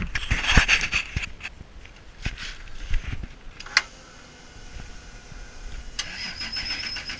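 Knocks and rustles of a camera being handled, with scattered clicks. About six seconds in, a toggle switch clicks on the car's dash switch panel and a steady high electric whine starts as the electrics come on ahead of starting the 2JZ engine.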